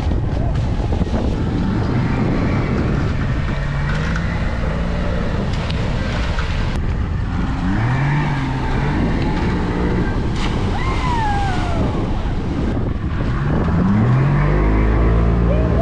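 Wind buffeting an action camera's microphone over open water, with a few short calls and whoops from people at the rope swing; one high call falls in pitch about eleven seconds in. The low rumble grows heavier near the end.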